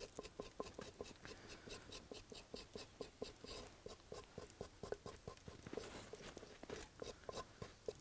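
Back of a knife blade scraping the skin off a burdock root in quick, even strokes, about five a second, faint.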